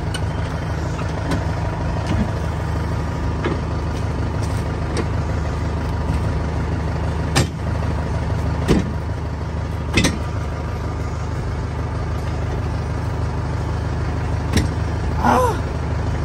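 Tractor engine idling steadily, with a few sharp knocks over it several seconds apart.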